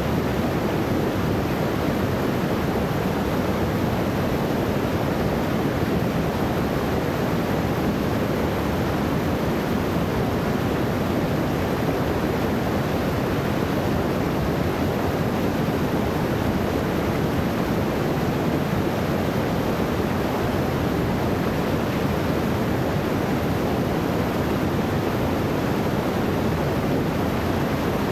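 Small waterfall pouring over rocks into a pool: a steady, unbroken rush of water.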